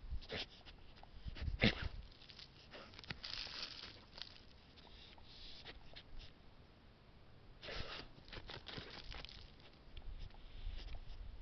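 A dog snuffling with its nose pushed into loose soil, in irregular noisy bursts with a few sharp scuffs of dirt.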